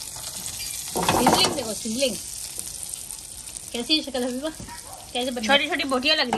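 Chopped beef kata-kat sizzling steadily in hot oil in a karahi on a gas burner. A voice is heard three times over the sizzle, about a second in, near four seconds and from about five seconds to the end.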